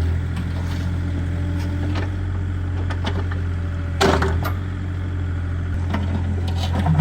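Excavator engine running steadily under load as the machine works to lift a large boulder out of a pond, with a brief louder sound about four seconds in.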